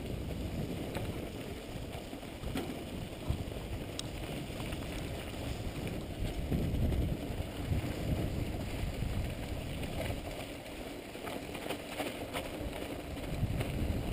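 Mountain bike rolling over a rough dirt road: wind buffeting the action camera's microphone and tyre rumble, with scattered clicks and rattles from the bike.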